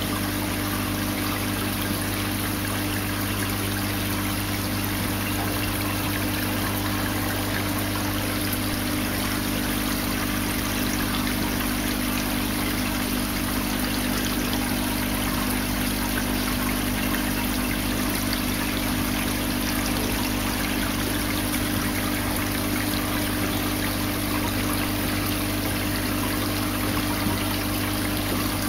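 Aquarium water pump and filter running: a steady rush of trickling water over a constant low hum.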